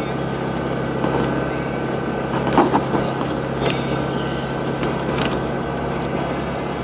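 Steady engine and road noise inside a car driving slowly on a snow-covered road, with a low hum throughout. A few short, sharp clicks come about two and a half, three and a half and five seconds in.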